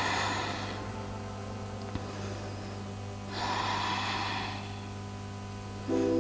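A woman breathing out audibly twice during a held yoga stretch, each long breathy exhale lasting about a second, over calm background music of sustained tones. A new chord enters in the music near the end.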